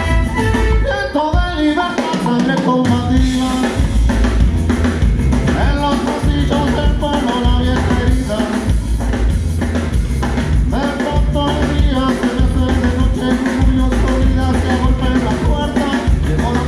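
Live band playing a song with a drum kit, bass and singing. The bass drops out for a moment about a second in, then the full band comes back in.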